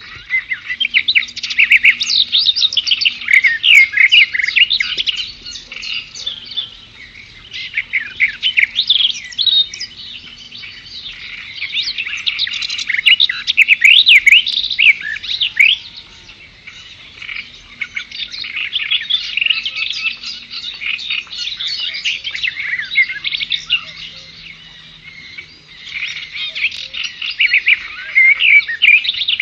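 Birdsong: a dense chorus of many birds chirping and twittering at once, with quick high chirps that swell and ease in waves every few seconds.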